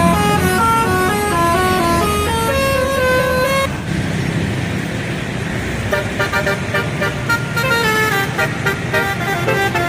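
Bus telolet horn playing a melody of stepped notes. Near the middle it breaks off for about two seconds, leaving engine and traffic noise, and then the melody starts again.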